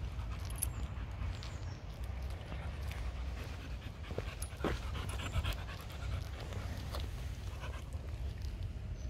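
A spaniel panting steadily while walking on a lead, over a steady low rumble.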